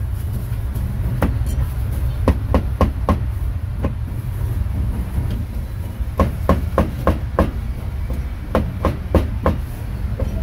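A cleaver chopping meat on a chopping block: sharp knocks in quick runs of four to six, about three a second, with short pauses between runs, over a steady low rumble.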